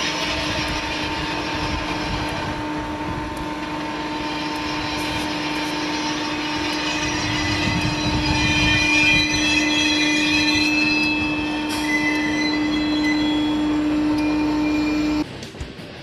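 Train pushing a railway snow spreader through deep snow: a steady loud rush of snow and running machinery with one unbroken drone underneath. The sound cuts off suddenly near the end.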